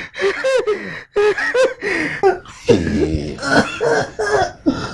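Raised human voices giving short cries and calls, without clear words.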